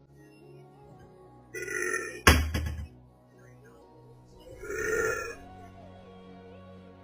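A woman burping twice, about a second and a half in and again about five seconds in, with a sharp crack just after the first burp. Faint background music plays underneath.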